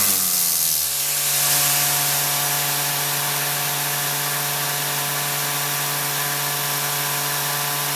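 Electric vacuum pump running with a steady hum, with a hiss of air bleeding in through the just-opened vacuum regulation valve. The pump's note shifts during the first second, then holds steady as the system settles back to the regulated vacuum level.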